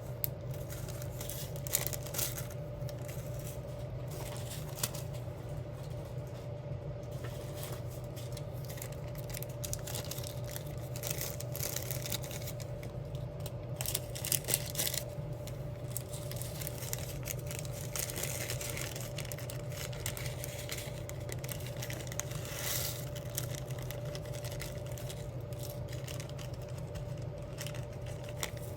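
Diamond-painting work: irregular light taps and clicks of a drill pen picking up and pressing small resin gems, with occasional plastic rustling, over a steady low room hum.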